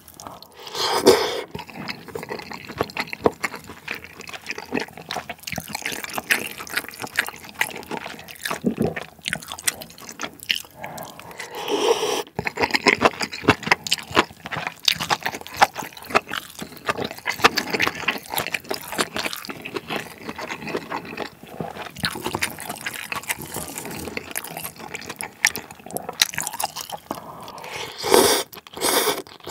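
Close-miked eating sounds: noodles slurped from a bowl of spicy malatang, with steady wet chewing and mouth clicks. Louder slurps come about a second in, around twelve seconds in, and near the end.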